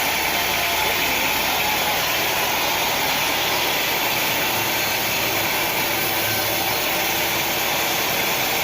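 Sawmill machinery running with a steady, even mechanical noise and no distinct cuts or impacts.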